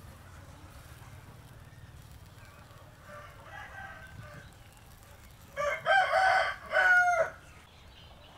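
A rooster crowing once, about five and a half seconds in, a drawn-out call in several pulses that bends down in pitch at the end. A fainter, more distant call comes a couple of seconds before it.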